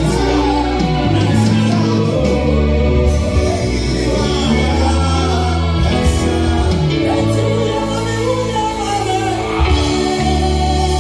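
Live gospel worship song: a female and a male lead singer sing into microphones over a band of keyboard and bass guitar, steady and loud.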